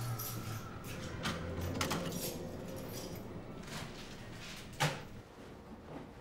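Short clicks and knocks of wall mailbox doors being handled, with one sharper knock about five seconds in.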